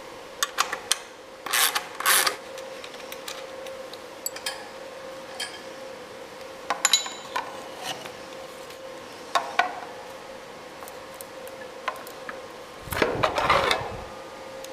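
Metal wrenches clinking and clicking against bolts and an aluminium bracket as the bracket bolts are undone, in scattered sharp taps. Near the end, a longer rubbing noise as the plastic coolant overflow bottle is lifted out of its strap bracket.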